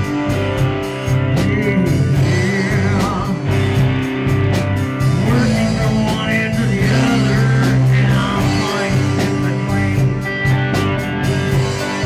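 A live rock band playing: electric guitar, bass guitar and keyboard over a steady drum beat, with wavering lead lines now and then.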